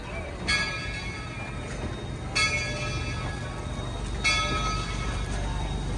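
Steam locomotive's bell ringing slowly, three strikes about two seconds apart, as the train starts to pull out. Underneath, a low rumble from the passenger coaches rolling along the track grows louder.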